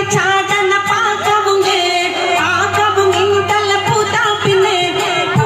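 A woman sings a Malayalam song live into a microphone over a band's accompaniment of keyboard and a steady drum beat, all amplified through a PA system; her voice glides and wavers in ornamented phrases.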